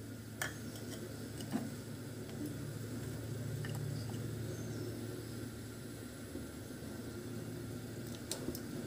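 A steady low mechanical hum, with a few light clicks.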